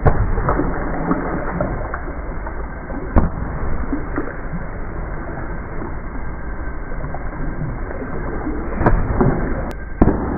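Swimming-pool water sloshing and splashing around swimmers, a steady rushing noise broken by a few sharp knocks or splashes near the start, about three seconds in and near the end.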